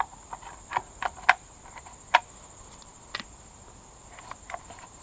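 Irregular sharp clicks and knocks of hard recoil-starter parts being handled, about a dozen taps, the loudest a little over a second and about two seconds in. Under them is a steady high cricket trill.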